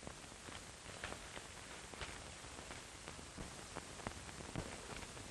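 Faint steady hiss of an old optical film soundtrack, with scattered light crackles.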